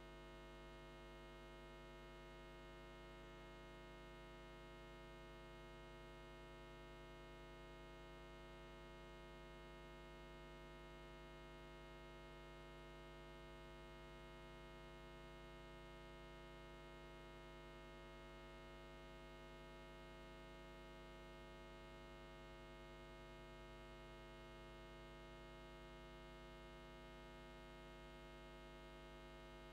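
Near silence apart from a faint, steady electrical mains hum: a low hum with a stack of evenly spaced overtones that never changes.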